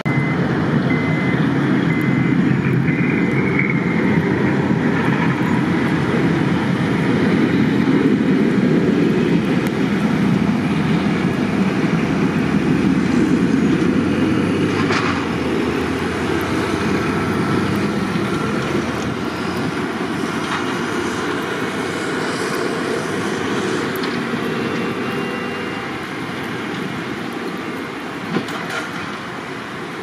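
Heavy snow-clearing machinery and trucks running in a steady, loud rumble. A few short high beeps sound near the start, and there is a single knock near the end.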